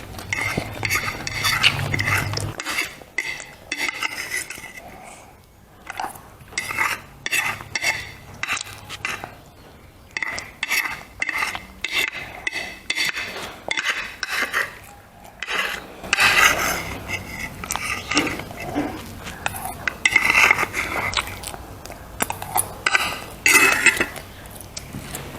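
Cutlery clinking and scraping against a plate during a meal, a long run of short sharp clinks.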